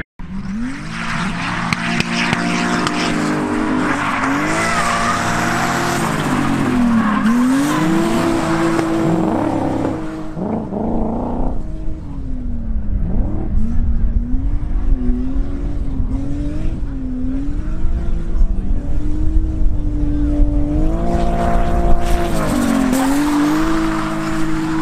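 A drift car's engine revving hard, its pitch climbing, holding and falling again and again as the car is driven sideways, with tyres squealing through the slides. The tyre noise eases off in the middle and returns strongly near the end, while the engine keeps revving up and down.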